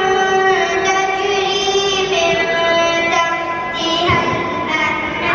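A high voice singing a slow melody in long held notes that step from pitch to pitch.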